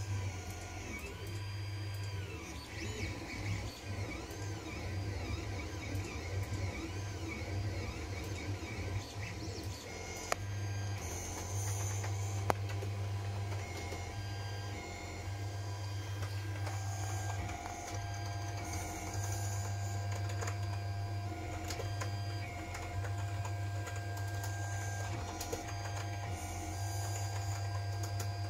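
Creality Ender 5 3D printer printing a first layer: its stepper motors whine in shifting tones, with rising and falling glides as the head traces curves, over a steady low hum. Two sharp clicks come about ten and twelve seconds in.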